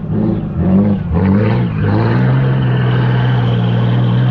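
Four-cylinder car engine revving under load, its pitch wavering up and down for about two seconds, then climbing and holding steady.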